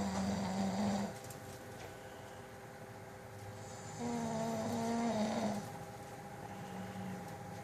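Snoring with a pitched, droning tone, repeating about every four seconds: one snore at the start lasting about a second, a longer one about four seconds in that drops slightly in pitch at its end, and a fainter one near the end.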